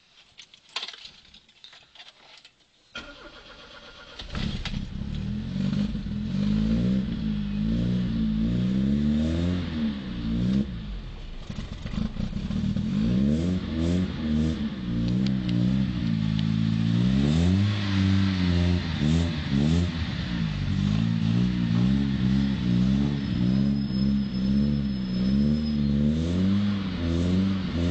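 Chevrolet Monza Barcelona's four-cylinder engine rumbling through its exhaust: a few clicks, then it starts about three to four seconds in and is revved again and again, its pitch rising and falling with each blip.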